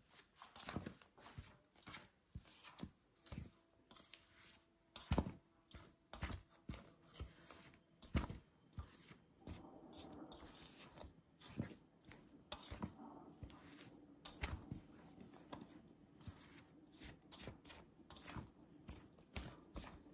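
Silicone spatula stirring dry flour in a stainless steel bowl: quiet, irregular scraping and tapping against the metal, with two louder knocks about five and eight seconds in.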